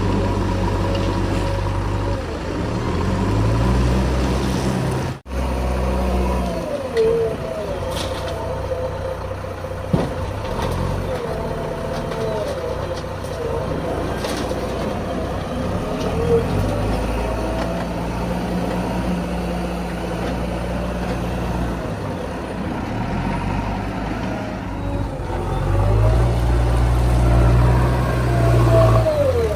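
Diesel engine of a backhoe loader working a load of soil, its note rising and falling as the machine digs and swings, with a wavering higher whine over it. The sound breaks off briefly about five seconds in.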